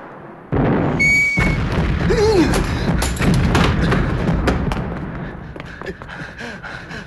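War-film sound effects of an air raid: a sudden loud blast about half a second in, followed by a dense clatter of thuds and cracks. A brief whistle-like tone sounds near the start, with music underneath.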